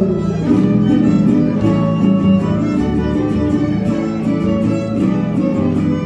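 Violin-led string band with guitar playing a dance tune to a steady beat.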